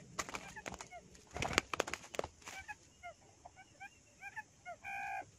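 Quail calls: many short chirps repeated at several pitches, with a cluster of rustles and knocks in the first half, loudest about one and a half seconds in. A brief steady held note sounds about five seconds in.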